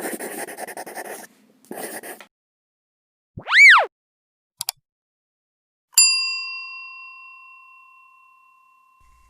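Intro sound effects: two short bursts of noise, then a loud tone that sweeps up and falls back down, two quick clicks, and a single bell ding about six seconds in that rings out slowly.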